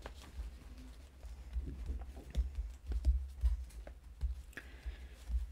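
Hands pressing and rubbing a paper flower sticker flat onto a Bible page: a run of dull low thumps through the book and table with faint taps, heaviest about halfway through.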